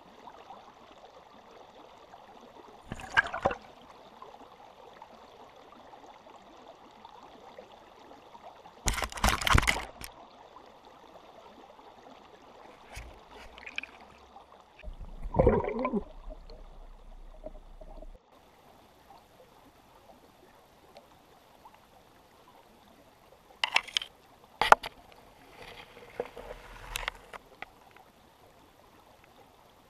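Creek water running, a steady faint hiss, broken every few seconds by louder splashes and knocks, the longest a second-long splash about nine seconds in and another near the middle.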